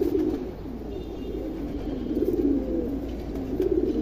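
Domestic pigeons cooing, low warbling coos overlapping one another without a break.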